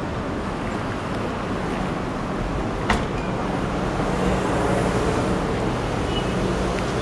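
Street traffic: the steady hum of passing cars, one swelling a little louder about four to five seconds in. A single sharp click just before three seconds in.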